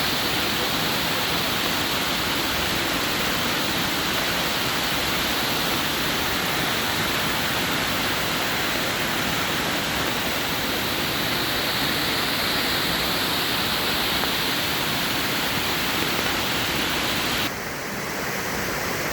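Waterfall cascading over travertine ledges: a steady, even rush of falling water. Near the end it drops slightly in level and changes character all at once.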